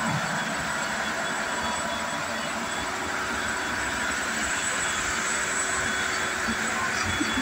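Ship's engine-room machinery running: a steady, even mechanical noise with a few thin high-pitched whines held over it.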